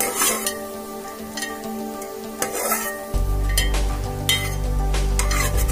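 A perforated metal ladle scraping and clinking against a metal pot while cashews fry in ghee and oil with a light sizzle, as they are lifted out once golden. Background music plays throughout, with a low bass part coming in about three seconds in.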